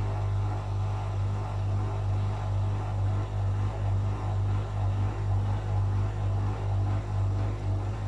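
Whirlpool FL 5065 front-loading washing machine turning its drum during a rinse: a steady motor hum, with water and laundry sloshing inside the drum.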